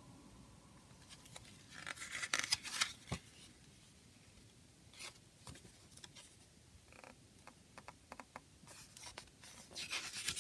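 Paper CD booklet being handled and its pages turned: crisp paper rustling and flicking in two spells, about two seconds in and again near the end, with a run of light ticks in between.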